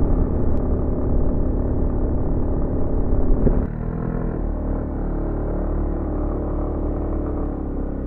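Aprilia scooter's single-cylinder engine running under way, with wind and road rumble on the microphone; about three and a half seconds in the note drops and gets a little quieter as the scooter eases off and slows.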